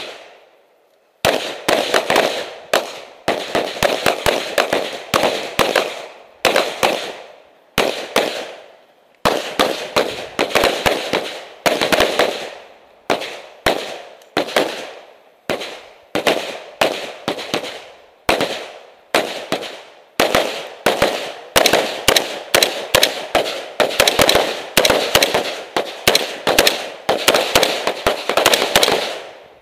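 Gunfire from a firing line of pistols and AR-15 rifles: rapid strings of shots, several a second, broken by short pauses, with each shot echoing briefly.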